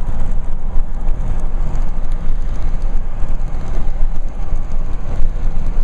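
Steady loud rush of wind and road noise from a car travelling at highway speed, with wind buffeting the microphone.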